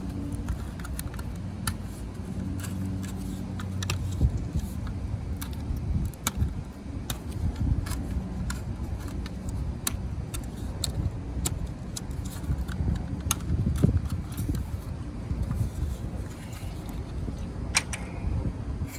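Irregular light clicks and clatter over a low, steady hum.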